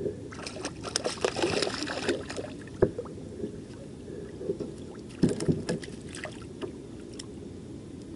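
A small catfish splashing and thrashing at the water's surface beside a kayak as it is reeled in, with a sharp knock about three seconds in and a second, shorter bout of splashing and flapping a couple of seconds later as the fish is lifted out on the line.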